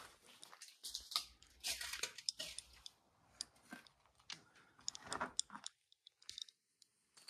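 Footsteps crunching and scuffing over debris and grit on a concrete floor, irregular and faint, pausing briefly near the end.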